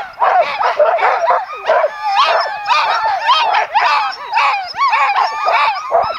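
A team of harnessed sled dogs barking, yelping and howling, many voices overlapping several times a second: the clamour of a team standing in harness, eager to be let go.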